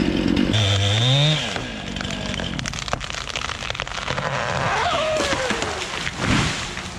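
Chainsaw running at full throttle, its pitch rising, then easing off about a second and a half in. A dense crackle and snapping follows, with the saw idling down.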